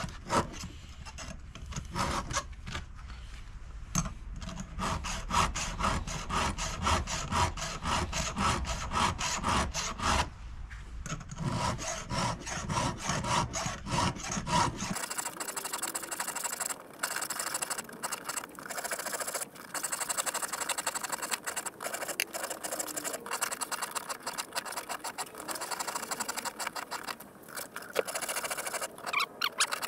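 Hand round file rasping across the cutters of a chainsaw chain in repeated strokes, sharpening teeth that have gone rounded. From about halfway the strokes come much faster and sound thinner, the footage sped up eightfold.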